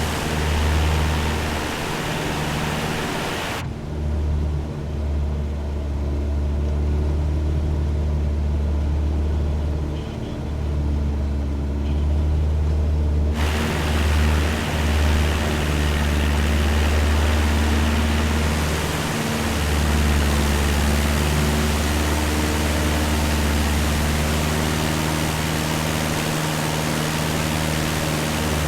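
Cessna 172's piston engine and propeller droning steadily in flight, a deep even hum with a layer of hiss above it. The hiss drops away sharply about four seconds in and comes back about ten seconds later, while the drone carries on unchanged.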